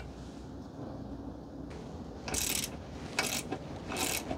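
Hand ratchet clicking in three short strokes about a second apart, backing out the front brake caliper bolts.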